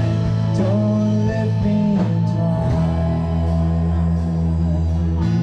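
Music with guitar and a singing voice over sustained low notes.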